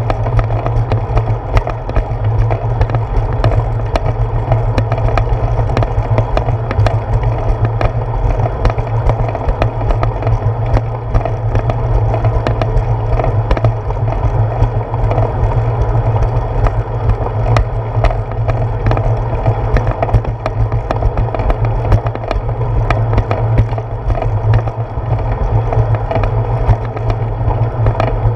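Bicycle rolling over a concrete path, heard through a handlebar-mounted GoPro Hero 4: a steady rumble and rattle from the tyres and the mount, with frequent small knocks from bumps and slab joints.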